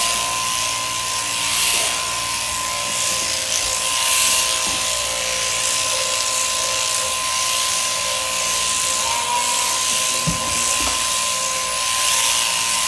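Mechanical sheep-shearing handpiece on a drive shaft, running with a steady high whine as it cuts through a sheep's fleece.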